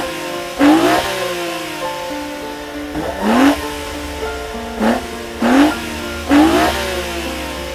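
Race-car engine sound effect revving in short rising bursts, about five times, over background music with long held notes.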